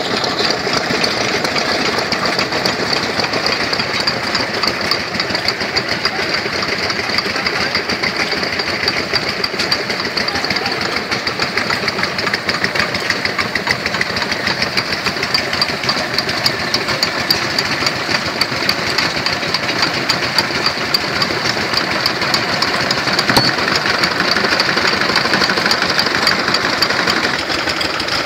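Vintage stationary engines running steadily, with a fast, even knocking beat.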